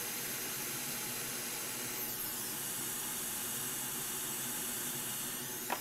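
Steady hiss of a hot air rework station blowing over an SSD circuit board while a small capacitor is heated and lifted off.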